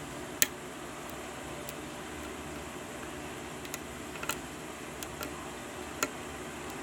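Lock pick and tension wrench working the pins of a six-pin Ace lock: a handful of sharp, irregular small clicks over a steady hiss, the loudest about half a second in.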